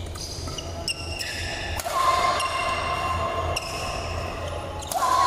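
Badminton rally: several sharp racket hits on the shuttlecock, over held steady tones.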